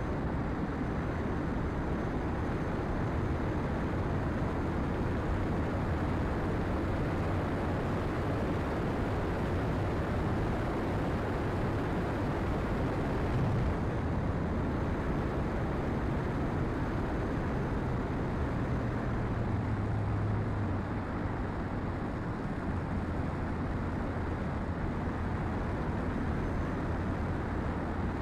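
The motor and propeller of a radio-controlled TopFlite Cessna Skylane scale model in flight, heard from a camera on its fuselage as a steady drone under heavy wind rush; the drone's pitch shifts a little about two-thirds of the way through.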